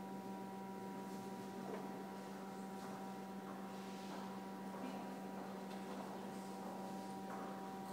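A steady machine hum made of several even tones, with a few faint clicks.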